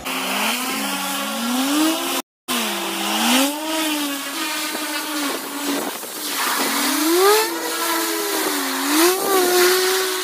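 Twin turboprop engines of a Twin Otter floatplane manoeuvring on the water. The two engines' pitches rise and fall separately and cross each other as the power is worked against the wind, over a steady hiss. The sound cuts out briefly about two seconds in.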